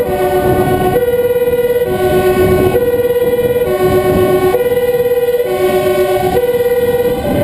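Two-tone emergency siren alternating between a high and a low note, each held just under a second, over the steady rumble of a fire engine driving through city streets, heard from aboard the truck.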